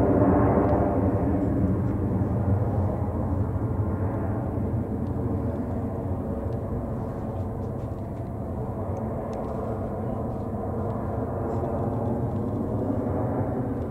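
Boeing 737-800's CFM56-7B turbofan engines at takeoff thrust: a steady, low rushing jet noise that slowly fades as the airliner climbs away.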